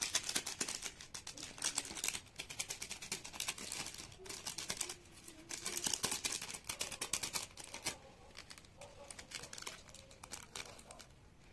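Foil-lined plastic sauce sachet crinkling and crackling as it is cut open and squeezed out by hand. The crackles are dense for most of the stretch and thin out near the end.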